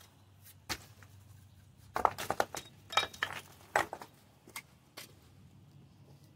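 Irregular sharp clinks and knocks of stone pieces and hand tools being handled and set down, bunched together about two to four seconds in.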